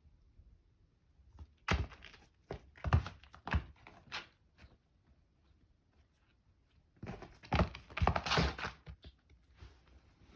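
A kitten playing with cut flowers: light knocks, thuds and rustling, tearing sounds in two bouts, about two seconds in and again from about seven to nine seconds.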